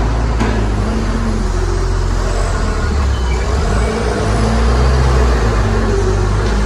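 Heavy diesel engine of earth-moving machinery running steadily, a loud low drone that rises and falls slightly in pitch.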